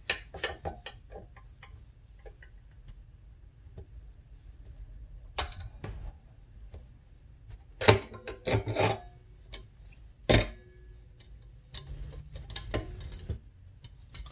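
Scattered clicks, taps and light rubbing of hand tools and small parts being handled at a workbench. A few louder knocks come around the middle.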